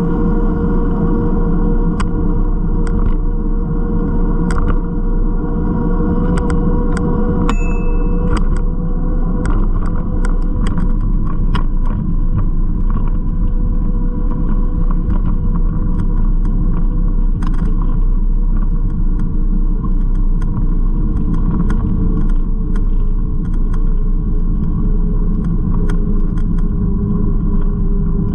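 Bicycle ride beside a busy road: a steady loud rumble of car traffic and rolling noise, with frequent small clicks and rattles from the bike as it rolls over the paving stones.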